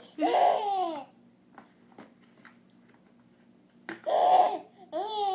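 A baby squealing and laughing in three excited outbursts, the first near the start, then after a pause of about three seconds two more in quick succession, each with a rising-then-falling pitch.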